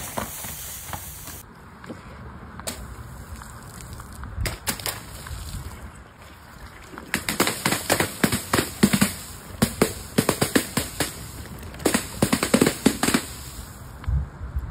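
Balloons bursting on a board of upturned nails: a rapid run of sharp pops. The pops come thickest in the second half.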